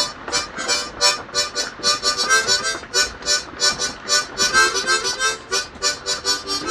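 Harmonica played in a steady chugging rhythm of short repeated chords and notes, about three to four a second, by a player who is still practicing.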